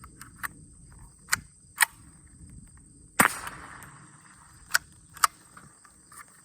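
Winchester Model 77 .22 Long Rifle semi-automatic being retried after a light primer strike. A few sharp metallic clicks of the action being worked come first, then a single shot about three seconds in with a short echoing tail, then two more clicks.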